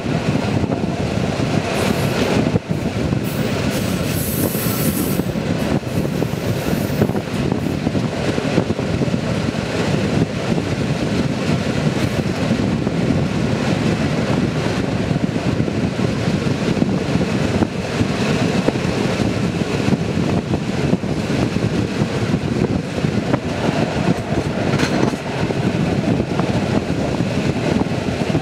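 Passenger train carriage running along the track, a steady rushing rumble of wheels on rails with clattering as it crosses joints and switches, heard from the carriage window. A brief high-pitched screech comes about four seconds in.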